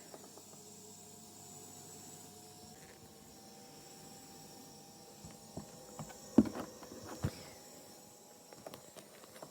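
Cough assist machine just switched on, giving a faint steady whine that steps up slightly in pitch about three seconds in, before any breaths are started. A few sharp clicks and knocks of handling come about six to seven seconds in, the loudest near the middle of that stretch.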